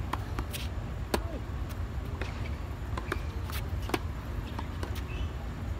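Tennis balls struck by rackets and bouncing on a hard court: a series of sharp pops, the loudest about a second in, over a steady low background rumble.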